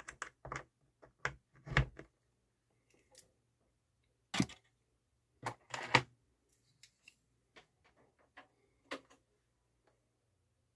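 Irregular clicks and knocks of turntable audio cables and their plugs being handled and connected, the loudest about four and six seconds in, over a faint steady low hum.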